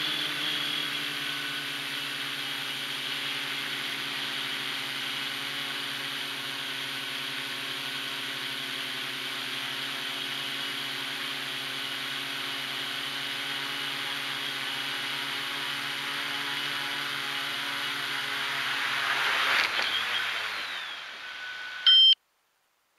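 Hexacopter's electric motors and propellers whirring steadily as it descends on an autonomous landing. About twenty seconds in, the sound swells with a knock as it touches down, then the motors spin down, falling in pitch. A short loud beep follows near the end, then the sound cuts off abruptly.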